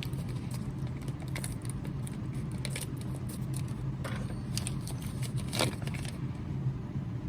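Small metal clicks, taps and scrapes of a quick-change lathe tool holder being handled and turned over, with a few crinkles of its packaging, over a steady low hum.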